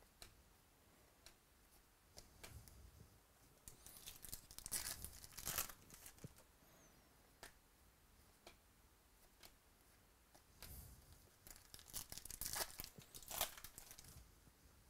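A pack of 2017 Topps Gold Label baseball cards being handled and flipped through, cards sliding against each other with the foil pack wrapper crinkling. There are two spells of papery rustling, about four seconds in and again from about ten and a half seconds, with faint clicks between them.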